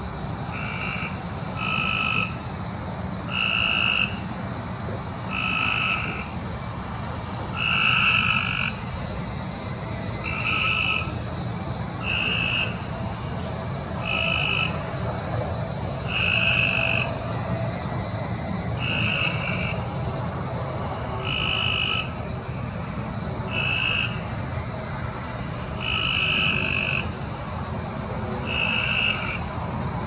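A frog calling outdoors at night: short croaks repeating about every one and a half to two seconds, over a steady high-pitched hum.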